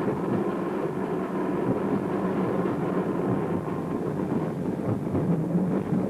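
Electric street tram running along its track: a steady, even rumble with no breaks or sudden knocks.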